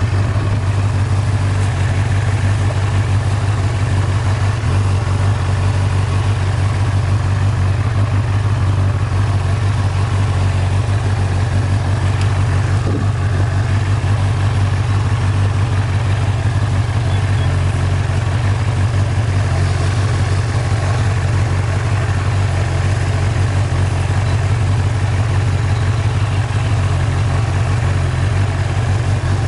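Vehicle engine running steadily at low speed, a constant low drone heard from on board as it drives slowly over a grassy track.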